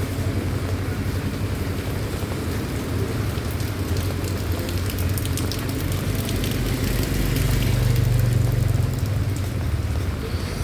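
Rain falling steadily, with scattered drop ticks, under the low rumble of a vehicle engine that grows louder about seven to nine seconds in.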